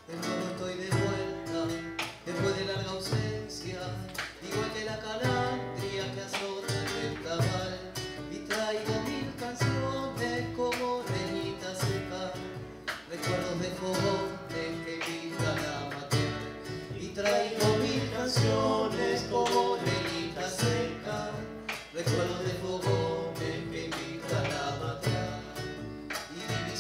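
Argentine folk music played live: acoustic guitars picking and strumming an instrumental introduction, with steady low beats from a bombo legüero underneath.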